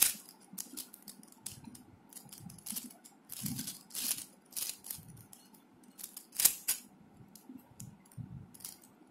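Fangcun Geared Mixup plastic puzzle cube being turned by hand: its gears and layers click and clack at an irregular rate, with one louder clack about six and a half seconds in.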